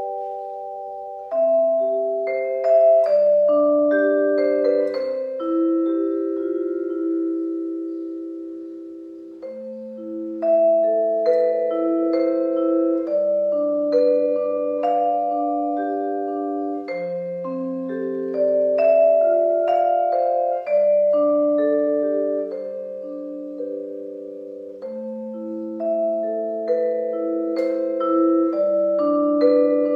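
Solo vibraphone played with four mallets: chords and melody notes struck in phrases, each note ringing on and overlapping the next, fading away between phrases.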